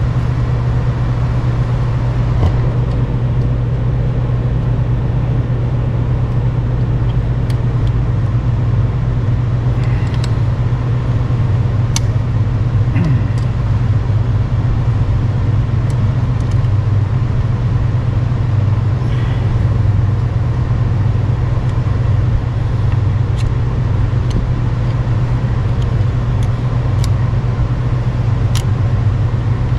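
A steady low mechanical hum throughout, with a few faint clicks of a screwdriver against metal parts around the throwout bearing.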